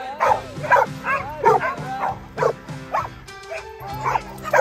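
Several dogs barking and yipping in short, excited greeting calls, two or three a second, some bending up and down in pitch like whines, over background music with steady held low notes.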